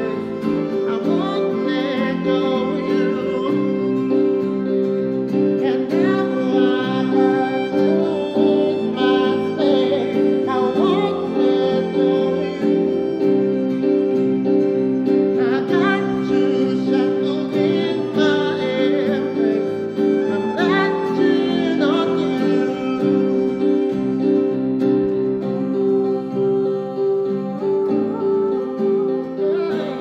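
Acoustic trio of violin, acoustic guitar and electronic keyboard playing a slow pop song, the bowed violin line gliding over sustained keyboard chords and strummed guitar.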